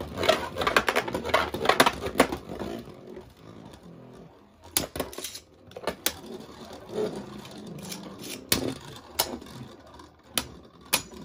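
Two Beyblade Burst spinning tops clacking against each other as they spin in a plastic stadium, rapid hits at first, then scattered single clacks as they circle.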